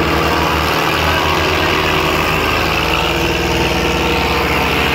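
Tractor diesel engine running steadily, with a fast, even throb.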